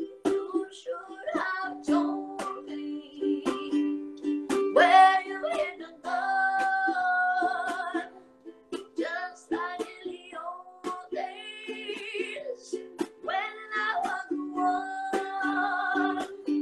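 Strummed ukulele accompanying a solo voice that sings long held notes with vibrato, without clear words.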